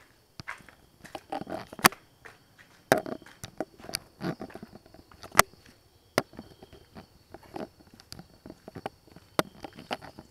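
Irregular clicks, knocks and short rustles of footsteps and a hand-held camera being handled, with a faint steady high-pitched tone behind. The sharpest knocks come about two, three and five and a half seconds in.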